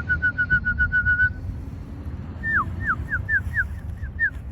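A person whistling to call racing pigeons in to the loft: a fast trill of short, even notes for about a second, then a run of separate notes that each slide down in pitch.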